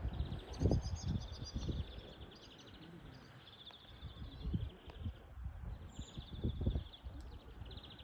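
Birds chirping in rapid, repeated trills, over low rumbling noise that comes in gusts.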